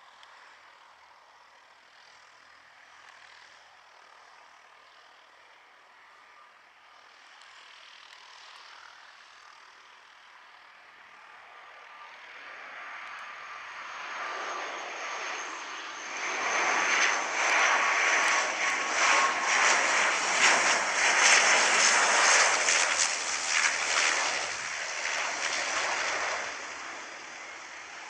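Flybe Bombardier Dash 8 Q400 turboprop on final approach, its engine and propeller noise building from faint to loud over the first half, with a steady high whine that drops slightly in pitch as it passes. The noise eases off near the end as it touches down.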